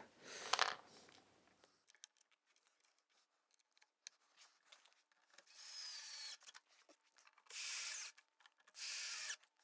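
Cordless drill driving pocket-hole screws into wood: three short runs of about a second each in the second half, each with a wavering high motor whine. A brief faint rub just after the start.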